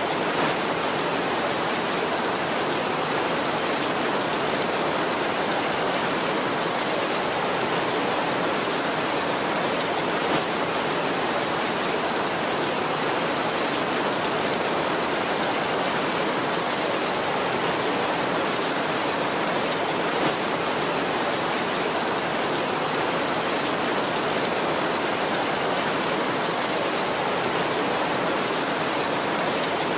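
Steady heavy rain, an even hiss with no thunder, with a couple of slightly louder moments about a third and two thirds of the way through.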